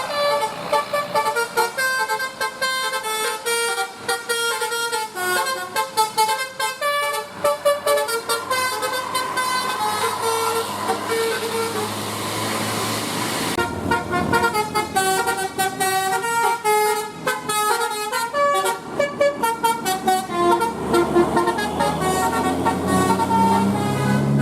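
Bus 'telolet basuri' musical air horn playing fast tunes of short, stepped notes, with a short lull partway through before the tune starts again. A vehicle engine revs up near the end.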